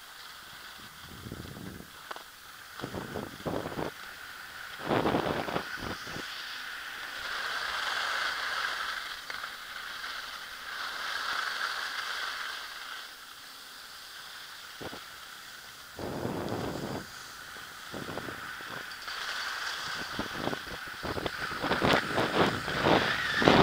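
Skis hissing and scraping over hard-packed snow during a downhill run, with wind buffeting the microphone in gusts that grow louder near the end.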